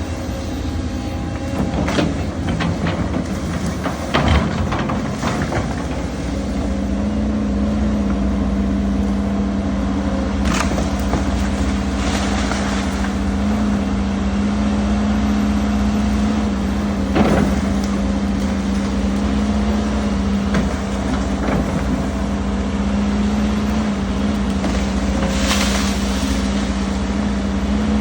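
Heavy diesel earthmoving machinery running steadily at a worksite, settling into a steady hum about six seconds in, with occasional sharp knocks.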